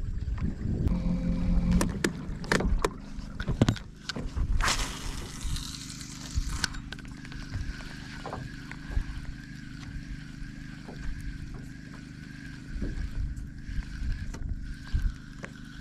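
Water and wind around a small aluminium boat drifting on open water. There are a few knocks and clicks in the first four seconds, then a brief hiss about five seconds in, and after that a faint steady whine over a low hum.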